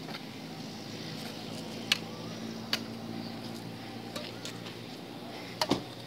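Badminton rackets striking a shuttlecock in a casual rally: a sharp pock about two seconds in, another under a second later, and a quick double hit near the end. A steady low hum runs underneath.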